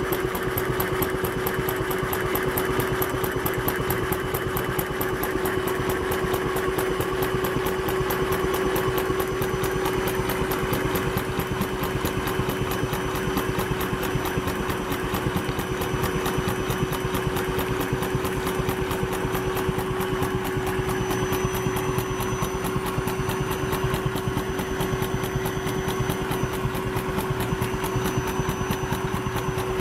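Vacuum cleaner running steadily with a constant motor whine, powering a homemade wooden toy air engine by suction; the toy engine's valve and piston give a rapid, even ticking as it turns.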